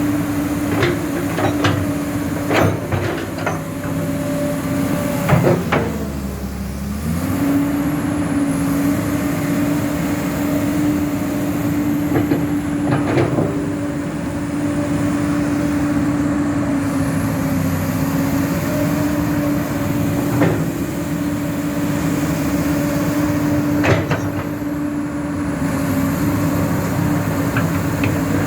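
Komatsu PC200-8 hydraulic excavator's six-cylinder diesel running at a steady speed. Its pitch sags briefly about six seconds in and then recovers, with sharp metallic knocks every few seconds.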